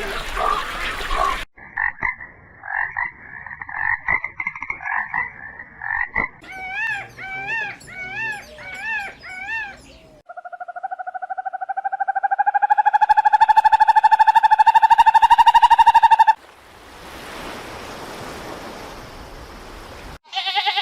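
A run of animal calls, mainly frogs croaking. First come short repeated calls, then arching chirps, then one long, fast-pulsed trill that rises slightly in pitch and stops suddenly. A few seconds of steady hiss follow.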